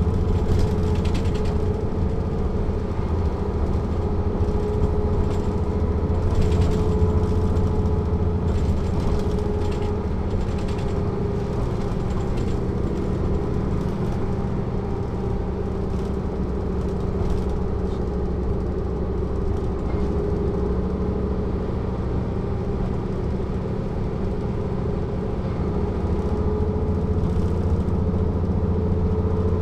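Mercedes-Benz O 407 city bus's straight-six diesel running steadily, heard from on board, with light rattles from the bodywork now and then. The engine eases off a little through the middle and picks up again near the end.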